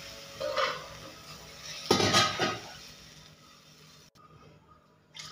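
Water poured from a glass bowl into a nonstick pan of ghee-roasted vermicelli, splashing in two short pours, the second louder, then fading away.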